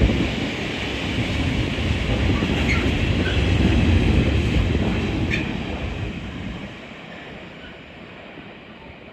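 Freight train hauled by a Class 66 diesel locomotive rolling past as a heavy rumble with a few sharp clanks, then fading away from about five seconds in as it draws off.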